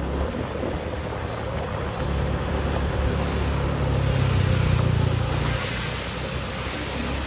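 Motorbike engine running steadily while riding, with wind rushing over the microphone; the engine gets louder from about two seconds in, then eases off near the end.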